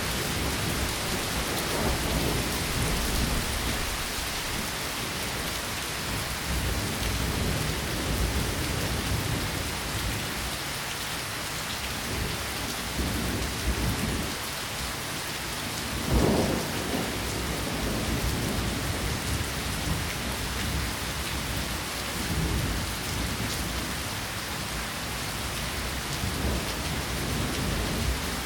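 Steady rain falling, with a low, uneven rumble underneath and a brief louder burst about sixteen seconds in.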